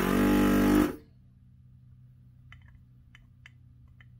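Hakko FR-410 desoldering station's built-in vacuum pump switching on for about a second as the gun's trigger is pulled: a loud steady pitched hum with a rush of air sucking molten solder off a pin through the nozzle, cutting off sharply. A few faint clicks follow.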